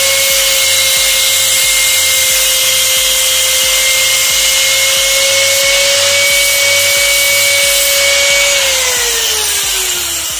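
Black+Decker angle grinder running with its disc against the end of a dry wooden branch, grinding it down, with a loud steady whine. About eight and a half seconds in, the whine falls in pitch as the grinder winds down.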